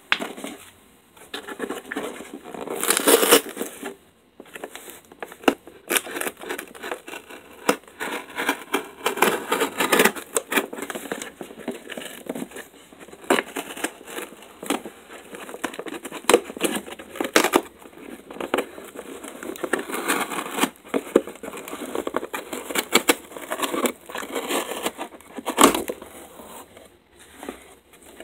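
Cardboard shipping box being opened by hand: a pen scraping and poking through the packing tape, tape tearing, and cardboard flaps rustling and scraping, in an irregular run of scrapes and clicks.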